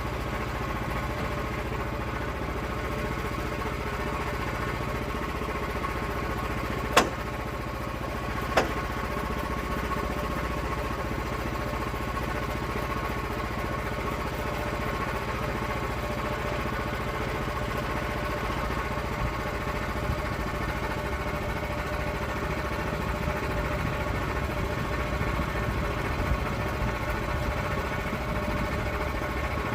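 Small engine running steadily, with two sharp knocks about seven and eight and a half seconds in.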